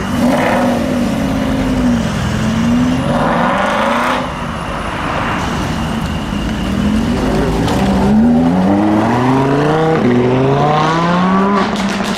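Car engine revving as it pulls away. In the second half it accelerates hard, its pitch climbing and dropping back at several gear changes.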